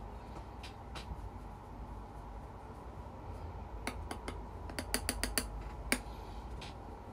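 Light, sharp clicks and taps from a makeup brush and a setting-powder container being handled while the brush is loaded with powder: three spaced taps, then a quick run of about five, then one more. A steady low room hum lies underneath.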